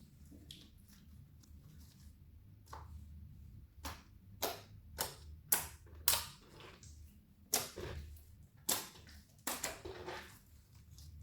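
Hands pressing and folding clear slime, giving a run of sharp pops and crackles from trapped air, a handful of them close together in the second half.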